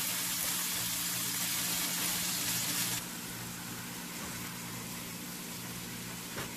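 Steady sizzling of washed poha frying in oil in a non-stick pan, which drops suddenly to a quieter level about three seconds in. A single light tap of the spatula near the end.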